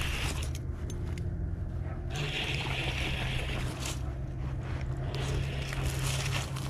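Spinning reel being cranked to bring in a hooked largemouth bass, in two spells of winding: one ends about half a second in, the other runs from about two seconds in to nearly four. A steady low hum runs underneath.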